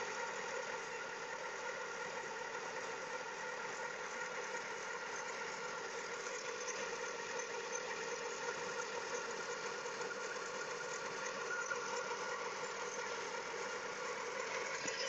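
Chery Kimo's Acteco 1.3 four-cylinder petrol engine running steadily at slightly raised revs, with a squeak of unknown origin that persists even though its pulleys are new.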